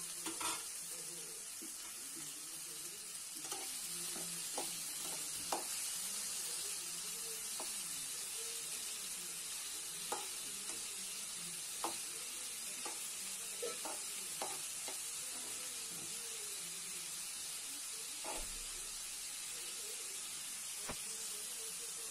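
Sliced onions sizzling as they fry in a metal pan, stirred with a spatula that knocks and scrapes against the pan in short sharp clicks now and then over a steady hiss.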